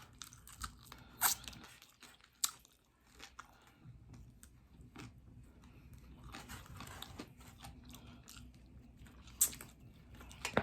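Close-miked chewing of crispy fried chicken wings: soft chewing broken by sharp crunching bites, the loudest about a second in, at about two and a half seconds, and near the end.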